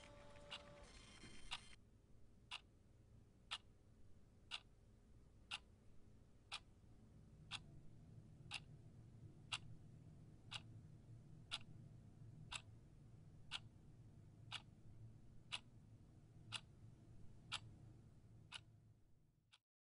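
Quartz wall clock ticking, faint and even, once a second, with a low hum underneath in the second half; the ticking stops abruptly near the end.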